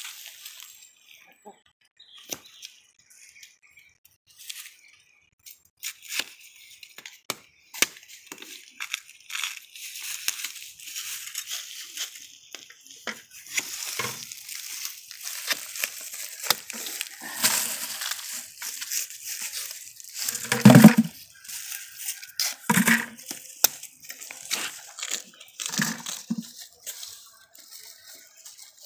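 Dry leaf litter and bamboo-shoot husks crackling and rustling: sparse clicks at first, then a denser stretch of crunching and tearing, with one louder knock about two-thirds of the way through.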